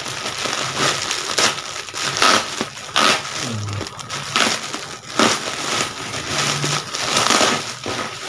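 Clear plastic bag crinkling and crackling in irregular handfuls as it is pulled and torn open by hand.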